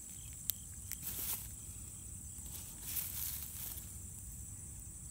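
Faint rustling of grass and crumbling clay-silt soil as a hand handles a dug-up clod, with one small click about half a second in. A steady high insect chirring runs underneath.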